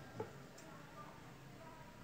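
A single light click of scissors being picked up off the table, just after the start; otherwise faint room tone.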